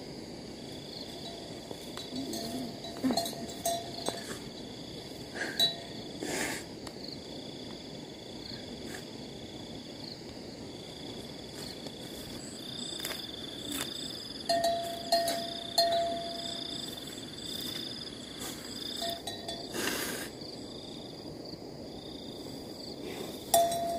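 Insects trilling steadily at a high pitch, with a few sharp knocks about six seconds in, near twenty seconds and at the end.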